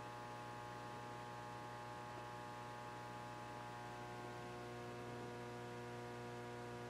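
Faint, steady electrical hum with a stack of higher overtones, unchanging throughout.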